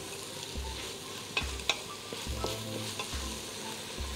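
Wooden spoon stirring minced meat and vegetables sizzling in a stainless-steel pot on the stove, with a few sharp knocks of the spoon against the pot.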